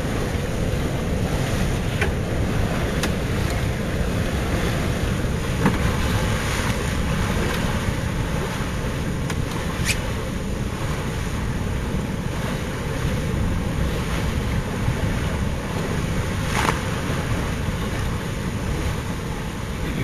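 Strong wind buffeting the microphone and water rushing along a sailing yacht under way, a steady rumbling roar of wind and sea, with a few brief sharp knocks or slaps.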